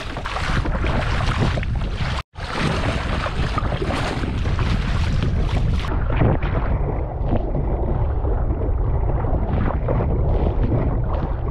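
Heavy wind buffeting the microphone over splashing sea water around a kayak. The sound cuts out for an instant about two seconds in.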